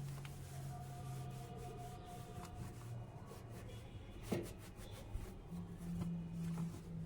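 Something being rubbed, over a steady low hum, with one sharp knock about four seconds in.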